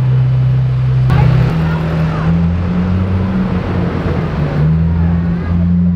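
Supercar engine running steadily at low revs, with a sudden louder stretch of engine and road noise about a second in that lasts some three seconds before the steady engine note returns.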